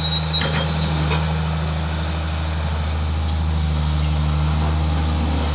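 Old Komatsu excavator's diesel engine running steadily and smoothly as it loads sand, with a few short knocks in the first second.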